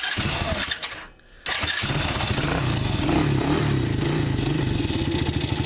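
Coolster 125cc single-cylinder ATV engine: a second of electric-starter cranking, a short pause, then the engine catches. It runs with its speed wavering for a couple of seconds, then settles into a steady idle.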